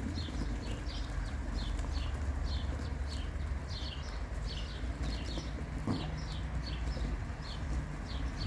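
Birds around a flock of racing pigeons at their loft: short high chirps that fall in pitch, repeating about twice a second, over a low steady rumble.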